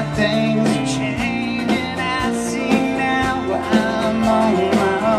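Live country band playing an instrumental passage between sung lines: acoustic guitar, electric guitars and drums keeping a steady beat.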